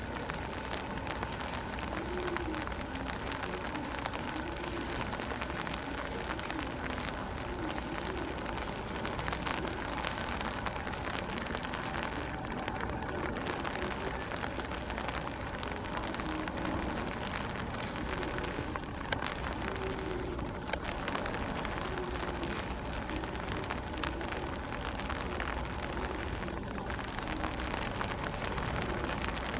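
Steady hard rain falling and pattering on surfaces, with many fine drop ticks.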